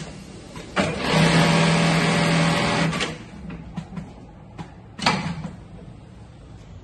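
Juki computer-controlled bartack sewing machine running at high speed for about two seconds, stitching the box-and-X envelope bartack that fastens a bag handle. Mechanical clicks and clunks from the automation's clamps and feed come before and after, with a sharp clunk about five seconds in.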